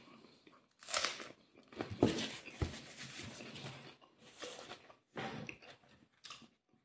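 Close-up chewing and crunching of a mouthful of crusty bread roll and grilled pork skewer meat, in several short bursts with brief pauses between them.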